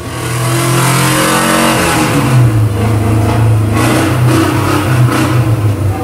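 Car engine on a workshop test stand running loudly and being revved, its pitch stepping up about two seconds in.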